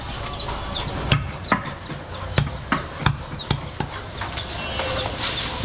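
A butcher's knife chopping and cutting goat meat on a wooden log block, with sharp irregular knocks about two a second. Birds chirp throughout in short falling calls.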